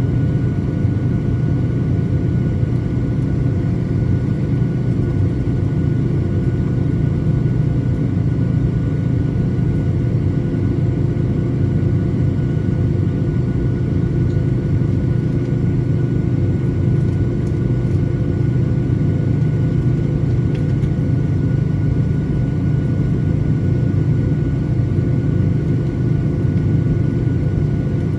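Boeing 737-900ER's CFM56-7B turbofan engines running steadily: a heavy low rumble with a steady high whine over it.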